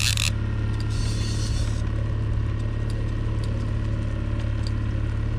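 Boat motor running steadily at trolling speed: a low, even hum with scattered light clicks.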